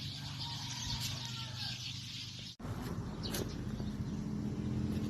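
Birds calling and chirping, with a steady low hum underneath; the sound cuts out for an instant about halfway through.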